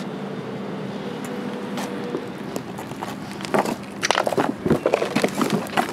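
Steady traffic hum, then from a little past the middle, footsteps crunching and clattering over broken wood, brick and plaster rubble.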